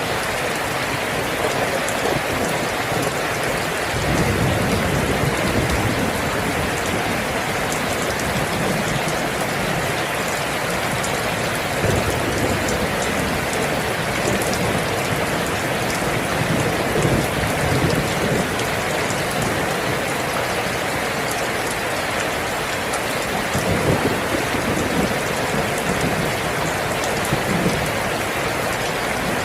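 Steady heavy rain pattering on surfaces, with low rumbling swells rising now and then beneath it.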